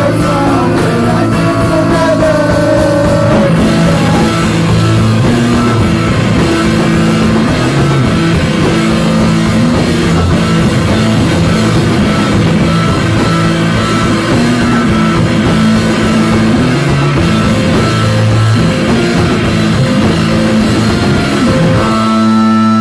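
Loud live rock band playing with distorted electric guitar, keyboard, drum kit and some singing. Just before the end the drums stop and a held chord rings on as the song finishes.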